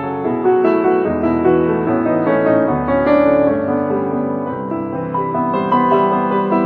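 Background piano music, many notes and chords ringing on together at a steady level.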